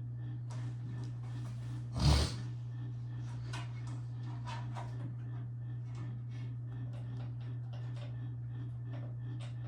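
Faint clicks and rustles of computer cables and parts being handled while fitting a connector, over a steady low hum, with one short loud thump about two seconds in.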